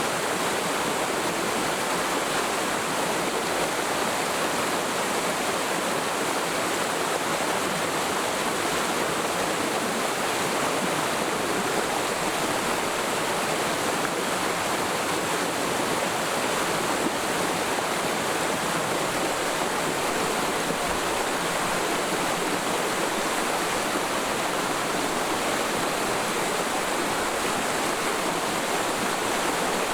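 Mountain stream in a forest valley flowing steadily over rocks: an even, unbroken rush of running water.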